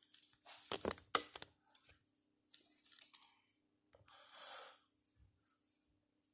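Fingernail clippers snapping shut on fishing line, a few sharp clicks about a second in, followed by rustling as the line and spinning reel are handled.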